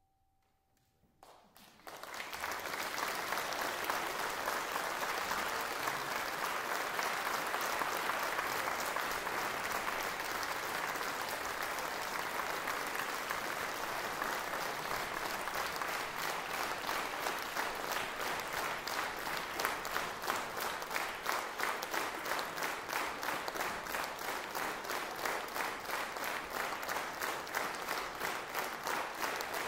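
An audience applauding at the end of a concert piece: the clapping breaks out about two seconds in, right after a faint last note dies away. Over the second half it settles into a steady rhythmic clapping in time.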